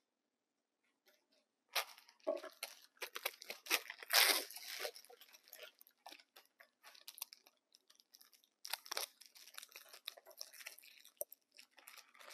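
Plastic packaging of a disposable infusion set being torn open and crinkled, in crackling bursts that start about two seconds in and are loudest around four seconds, with more crinkling later on.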